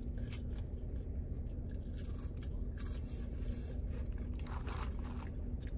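Close-up chewing and biting on KFC fries, with a few short crunches scattered through the chewing, over a steady low hum.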